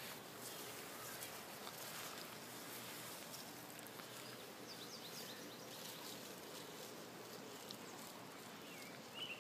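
Quiet backyard ambience: a steady low hiss of outdoor background noise, with a few faint short chirps about halfway through and again near the end.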